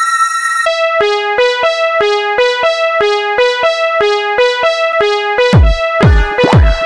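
Electronic music on a synthesized keyboard. A held chord gives way to a repeating pattern of alternating notes with sharp attacks. About five and a half seconds in, a heavy beat with deep kick drums comes in.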